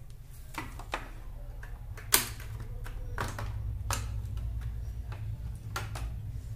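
Scattered clicks and knocks of a plasma TV's Y-sustain circuit board being handled and pulled free of its metal chassis. One sharp knock about two seconds in is the loudest, and a steady low hum runs underneath.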